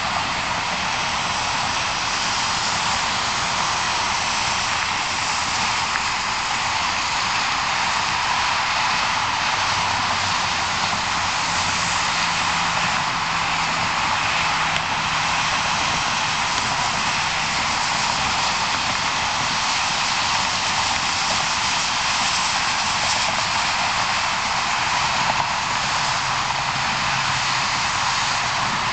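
Steady, loud hiss of steam venting from the top of the boiler of Milwaukee Road 261, a 4-8-4 Northern-type steam locomotive standing with steam up.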